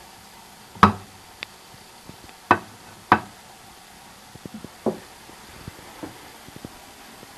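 Kitchen utensils knocking during cooking: three loud, sharp knocks (about a second in, then at two and a half and three seconds), a softer knock near five seconds, and light clicks in between.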